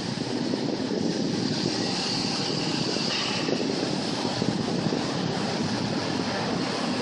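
Steady street noise: a low, even rumble of traffic and a tram, with some wind on the microphone.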